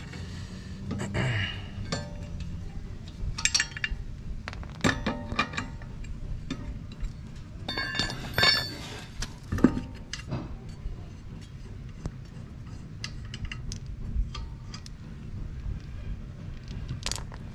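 Metallic clinks and knocks of steel wheel lug nuts and a cross lug wrench being handled while the nuts are unscrewed and taken off a car's front wheel. The clinks come irregularly, a cluster around 8 to 10 seconds in being the loudest.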